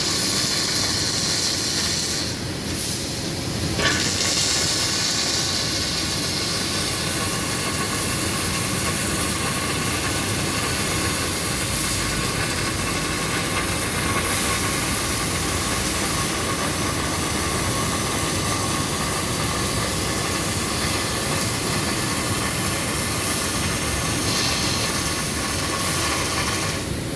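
Welding robot's arc welding: a steady hissing sizzle that dips briefly about two to four seconds in and resumes with a sharp click.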